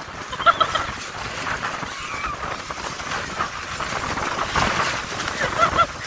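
Strong wind gusting and buffeting the microphone, with a tent's tarp flapping. Brief high calls come through near the start and near the end.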